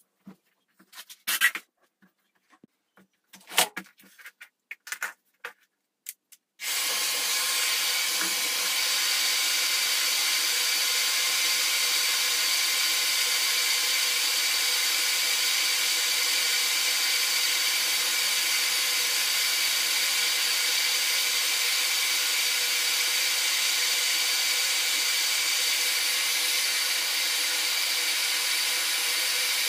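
A few clicks and knocks, then about six and a half seconds in a hair dryer switches on and blows steadily: a motor whine over a loud rush of air. It is heating the motherboard to reflow its solder.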